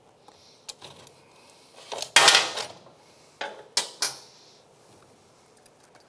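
Metal-on-metal clinks and clatter as the rear axle, its nut and spacers come off a Kawasaki KLX110's rear wheel. A few light clicks come first, then a louder scraping clatter about two seconds in, then three sharp clinks.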